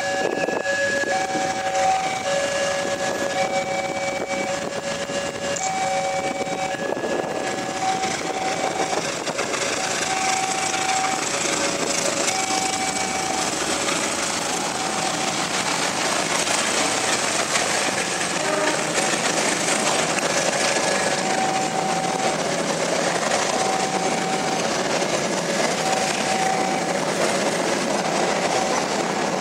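Level-crossing alarm chiming a repeated two-note electronic tone while a diesel-hauled passenger train passes close by. The rumble of the locomotive and the coaches' wheels on the rails grows louder about a third of the way in and covers part of the chime.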